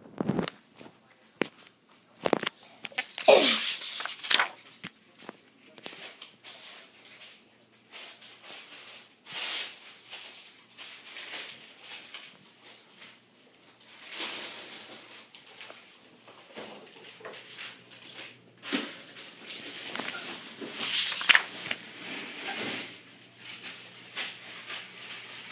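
Paper rustling and handling noise from a picture book being held and its pages turned, coming in scattered bursts that are loudest about three seconds in and again around twenty seconds in.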